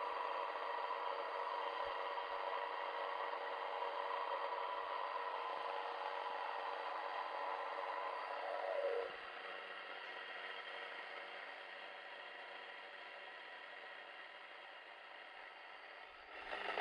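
Sana electric stone grain mill running, its millstones grinding millet into flour with a steady gritty whir. About halfway through a tone falls away and the mill goes on more quietly with a low hum.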